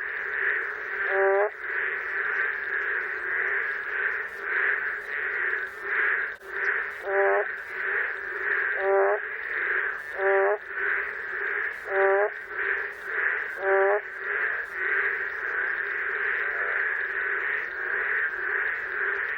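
Boreal digging frogs (Kaloula borealis) calling over a steady high chorus. One frog gives a call about every one and a half seconds, and its pitch drops and cracks, like an out-of-tune, hoarse voice.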